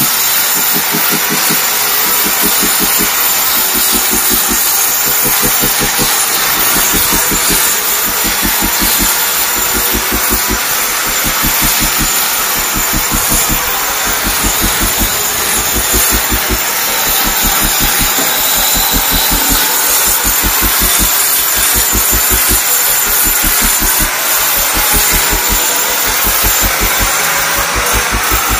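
Electric angle grinder running against a concrete wall, a loud steady grinding that prepares the wall surface for waterproofing.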